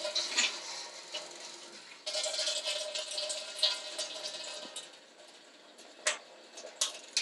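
Water rushing from a tap through a newly fitted gas water heater just after the water is turned on, surging about two seconds in and then dying down. A few sharp clicks near the end.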